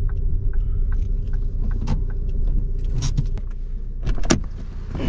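An MPV's engine and tyres rumbling steadily as it is driven slowly into a parking spot, heard from inside the cabin, with a faint steady hum and scattered small rattles and clicks, the sharpest about three and four seconds in.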